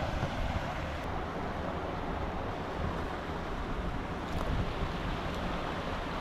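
River water rushing in a steady hiss, with wind buffeting the microphone in a low, uneven rumble.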